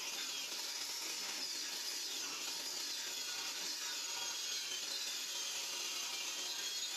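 Table saw running steadily as a 1-inch solid pine board is fed through it for a 45-degree cut.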